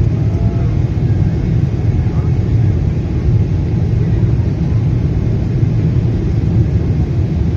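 Steady low rumble of an airliner's jet engines and rushing airflow, heard inside the passenger cabin during the climb after takeoff.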